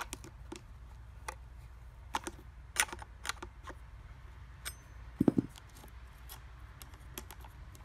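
Scattered light metallic clicks and clinks from handling the chainsaw's bar, chain and tensioner hardware while fitting the bar, with a duller knock about five seconds in.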